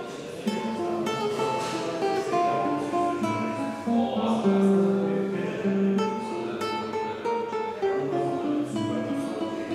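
Classical nylon-string guitar played solo, fingerpicked: a melody of single notes over bass notes, a little louder from about four seconds in.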